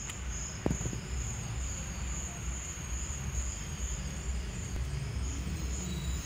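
Crickets chirping in a steady high trill that pulses about twice a second, over a constant low rumble, with one short knock near the start.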